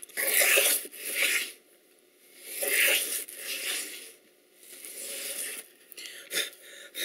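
Wooden grooving plane cutting a groove along a board: about five rasping push strokes, the first three strongest and the later ones fainter. A few light knocks near the end.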